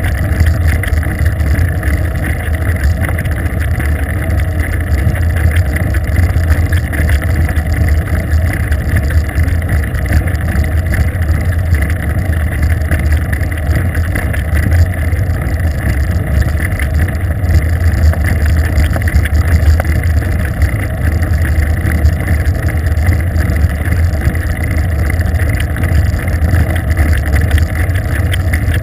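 Steady low rumble of wind and road noise on the microphone of a GoPro mounted on a moving bicycle.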